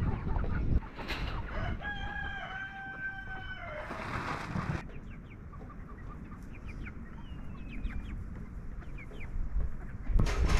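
A rooster crowing: one long, level call lasting about two seconds, starting about two seconds in. Faint, short high chirps follow later, over a low rumble of wind.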